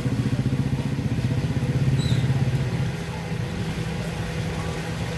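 A motorcycle engine idling close by with a fast, even pulse. About three seconds in it drops quieter and changes pitch.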